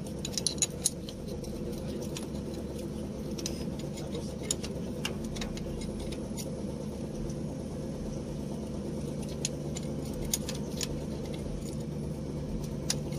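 Scattered metallic clicks and taps of a wrench on the mounting bolts of a new starter motor being fitted to a dump truck, over a steady low hum.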